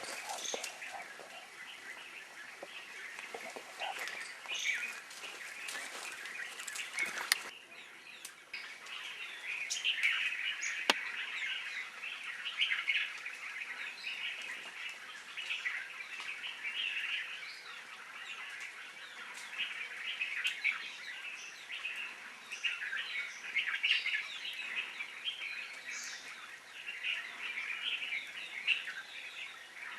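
Many birds chirping and calling together in a dense, continuous chorus of short high calls, briefly thinning out about seven seconds in.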